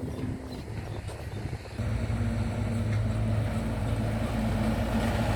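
A vehicle engine running. For the first two seconds there is an uneven low rumble, then a steady low drone sets in and grows slightly louder.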